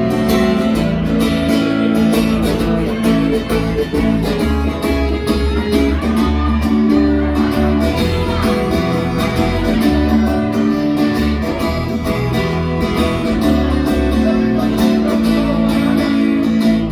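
Live band playing amplified music: guitar and bass guitar over a steady beat.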